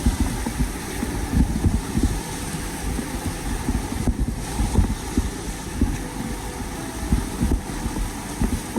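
Irregular low rumble and buffeting on the microphone, swelling and dropping in gusts over a faint steady hiss.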